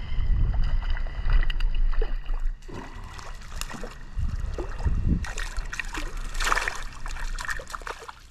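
A hooked trout splashing and thrashing at the water's surface as it is drawn into a landing net, the splashing heaviest a little after halfway. A heavy low rumble fills the first couple of seconds.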